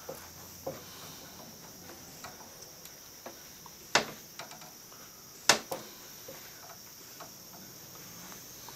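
Small metal tools clicking and tapping against a circuit board and its parts during capacitor desoldering: scattered sharp clicks, two louder ones near the middle, over a faint steady high hiss.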